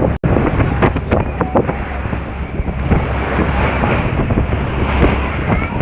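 Wind buffeting the microphone over the rush of sea waves on the shore, a steady loud noise with a momentary cut-out just after the start.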